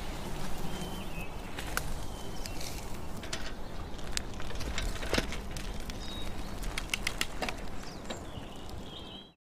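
Countryside outdoor ambience: a steady low rumble with scattered light clicks and a few short bird chirps, fading out just before the end.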